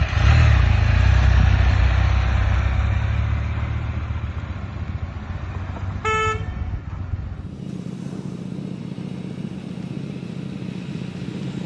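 Road vehicle noise: a loud low rumble fades over the first several seconds. A short car horn toot comes about six seconds in, then a quieter, steady engine hum.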